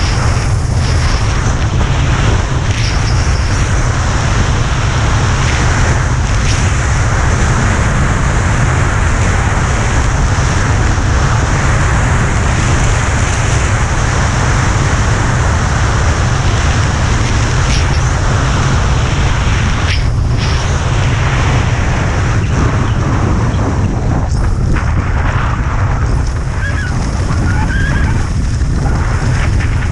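Wind buffeting a GoPro's microphone during a fast ski descent, a steady low rumble, with skis hissing and scraping over groomed snow; it eases slightly near the end as the run flattens out.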